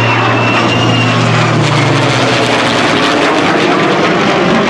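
An F-35A's F135 turbofan and a P-51 Mustang's Merlin V-12 flying over together in formation. The jet roars with a high whine that slowly falls in pitch during the first second or so, and a low propeller drone fades out about a second and a half in.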